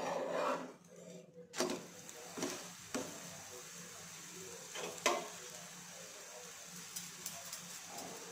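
Methi paratha being flipped on a hot nonstick tawa with a metal spatula: a scraping clatter and a few sharp taps of metal on the pan. From about a second and a half in, a steady sizzle of oil frying under the paratha.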